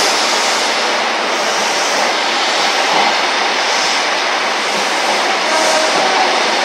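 Express passenger train's coaches rolling past close along a station platform: a steady, loud noise of wheels on the rails.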